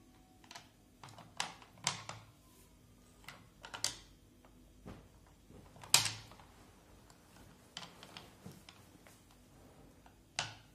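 Chocolate bars being set down and slid into place on a ceramic plate: a dozen or so irregular light clicks and taps, the loudest about six seconds in.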